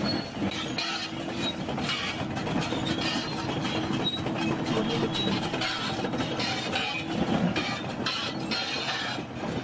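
Bulldozer working: its diesel engine runs steadily under continual metallic clanking from the tracks, with short high-pitched squeals of metal on metal now and then.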